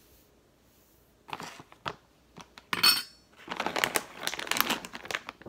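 Crinkling of a plastic pet-food bag being handled and rolled shut, in several bursts, with the loudest crackle about three seconds in and a dense run of crinkling near the end.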